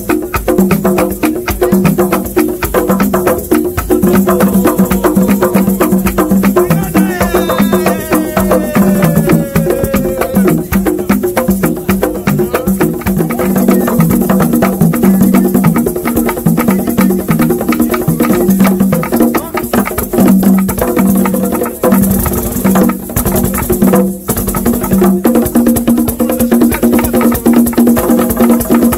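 Congolese traditional drumming: several tall wooden hand drums played together in a fast, dense rhythm, with sharp wooden clacks from a slit drum on a stand struck with a stick. A brief pitched call slides downward about seven to ten seconds in.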